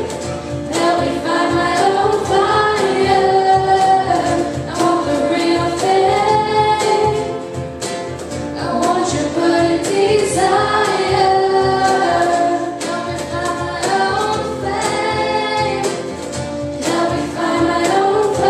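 Contemporary Christian worship song performed live by a student band: voices singing over acoustic guitar, keyboard and a steady cajón beat.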